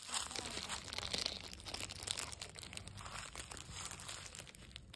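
Dry fallen leaves crackling and rustling underfoot, an irregular run of small crunches.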